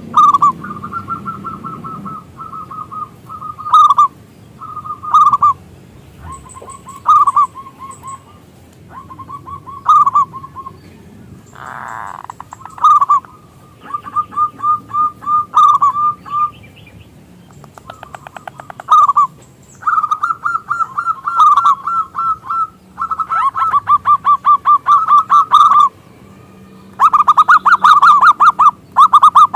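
Zebra dove (perkutut) cooing in a run of short, repeated phrases. Several phrases break into rapid rattling trills in the second half. It is the loud local perkutut song used as a lure call to get other perkutut singing.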